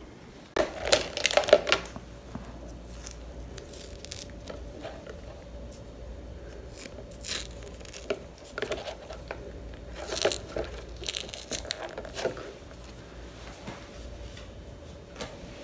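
Adhesive medical tape tearing and peeling, with plastic IV tubing and dressing crinkling as the tape over an IV cannula on the wrist is handled. The loudest rustling comes in the first couple of seconds, then shorter scattered rustles follow.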